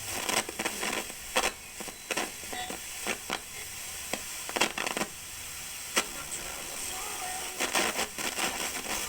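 Sony WM-FX310 Walkman radio putting out a steady static hiss with many crackles and clicks, no station coming through clearly.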